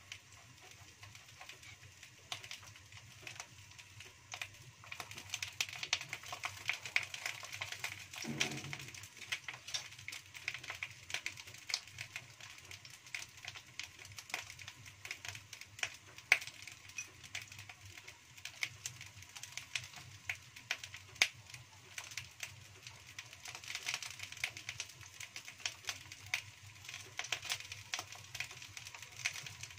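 Eggplant slices frying in a hot non-stick wok: a steady sizzle of small crackling pops that grows busier about five seconds in.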